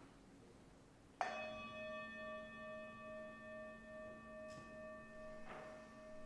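Singing bowl struck once about a second in, then ringing on with several steady overtones and a slow wavering pulse in its main tone.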